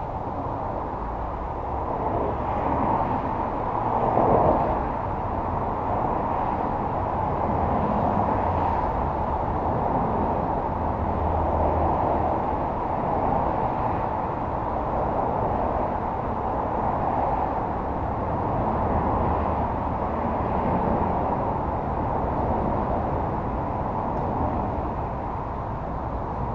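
Steady, muffled outdoor rumble and hiss of vehicle noise, swelling a couple of times near the start.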